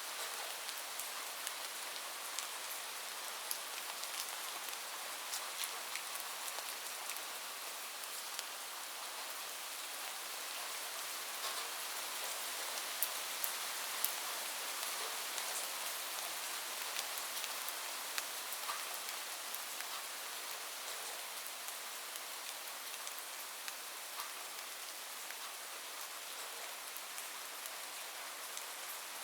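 Steady rain on a roof, a constant hiss with many scattered sharp drop ticks.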